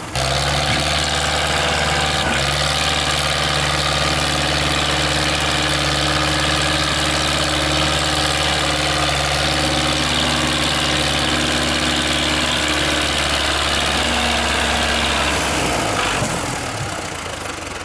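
Tractor diesel engine running at a steady pitch under heavy load as it pulls a trolley piled high with sugarcane. The sound starts sharply and drops away about two seconds before the end.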